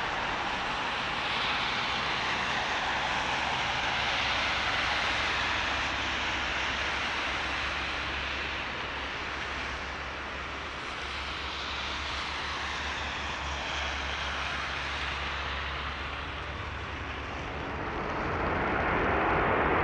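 Airbus A330-300 with Rolls-Royce Trent 700 engines on final approach and touchdown: a steady jet rumble and hiss that grows louder in the last couple of seconds.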